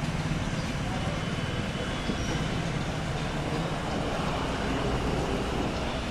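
Steady rumble of vehicle noise, a continuous dense din with no clear bird calls standing out.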